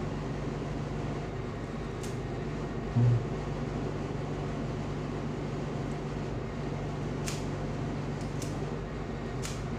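Steady low hum, with a brief low thump about three seconds in. A few sharp clicks come from the spring-loaded plunger of a claw-type drain-cleaning grabber as its claws are pushed out and drawn back.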